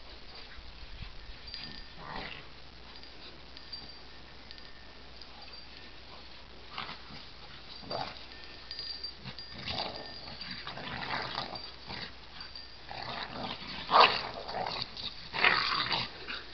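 Two or more dogs making odd play noises as they play together: scattered short bursts, sparse at first and busier and louder in the second half, the loudest about fourteen seconds in.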